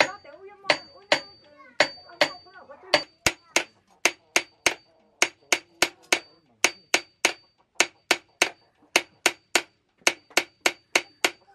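Hand hammer tapping a copper band onto a knife handle against a steel flange used as an anvil. The strikes are sharp and even, sparser at first, then about three a second, each with a brief high metallic ring.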